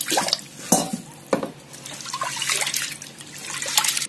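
Toor dal being washed by hand in water in an aluminium pressure cooker: water swishing and splashing as fingers stir through the lentils, with a few sharp clicks.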